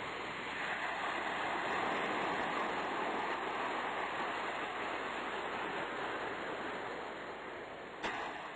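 Sea surf: a steady wash of waves that swells over the first couple of seconds and then slowly fades, with a single sharp click near the end.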